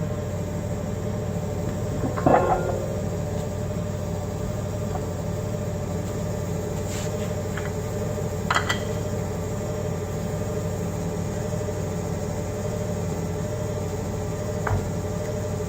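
Forklift running steadily with a constant engine hum, while metal parts clank three times as a fork is lifted and hooked onto the carriage, the loudest clank about two seconds in.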